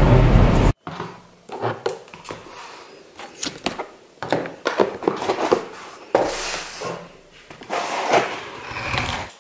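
Car cabin road rumble that cuts off suddenly within the first second. Then a string of knocks, taps and cardboard rustles as a cardboard pizza box is handled on a wooden table.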